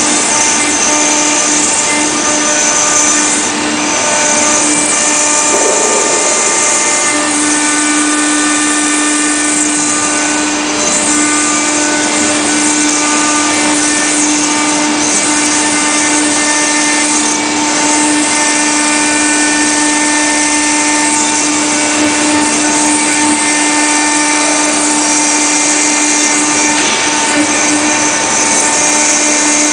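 CNC router spindle carving a marble slab with a stone-engraving bit: a steady whine of several held tones over the hiss of cutting stone. One low tone grows stronger about seven seconds in.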